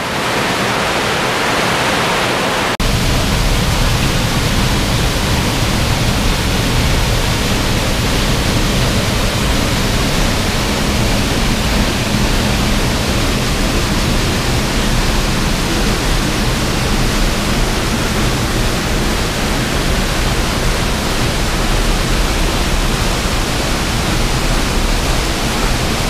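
Waterfall pouring into a rock pool: a loud, steady rush of water, which turns deeper and fuller about three seconds in.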